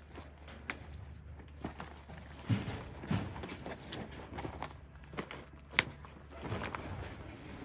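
Footsteps and scattered knocks and clicks of something being handled, with a few heavier thuds about two and a half to three seconds in and one sharp click near six seconds.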